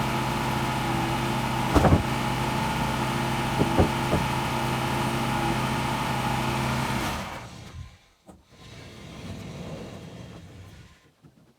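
Engine running steadily, with a couple of sharp knocks, then shut off about seven seconds in and winding down.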